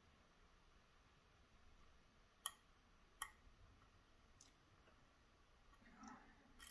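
Near silence broken by a few faint metallic clicks of a finger pin pick working the finger pins inside a Schlage Primus lock held under tension: two clearer clicks about two and a half and three seconds in, and a couple of fainter ones later.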